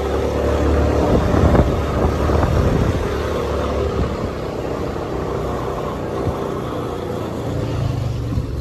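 Motorbike engine running steadily while it is ridden, with wind rumbling on the microphone.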